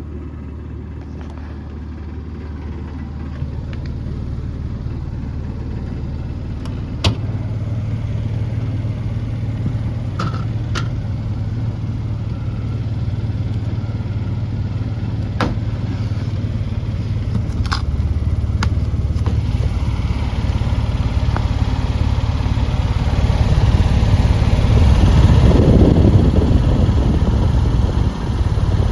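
HVAC blower fan running with a steady low hum that slowly grows louder, an odd fan sound, with a few sharp clicks along the way.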